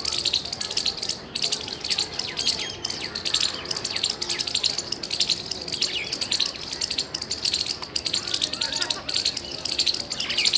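Squirrel chirping loudly: a fast, unbroken run of short, sharp, high-pitched chip notes, many a second.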